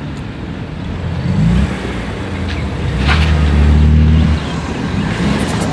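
Car engines running at low revs as cars roll slowly past. The engine note swells briefly about a second and a half in, runs louder for about a second and a half from three seconds in, then drops back.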